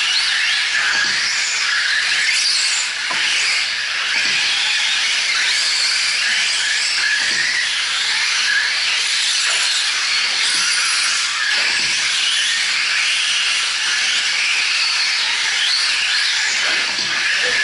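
Radio-controlled 4WD short course trucks racing on a dirt track: a steady, high-pitched hiss of motors and tyres, with faint whines rising and falling as the trucks speed up and slow down.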